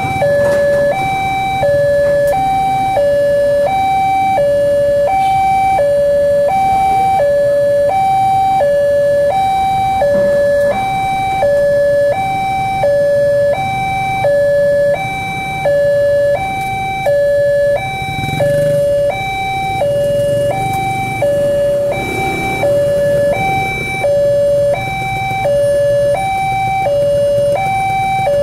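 Railway level-crossing warning sounding from a horn loudspeaker: an electronic two-tone signal that steps between a higher and a lower note about once a second and repeats steadily.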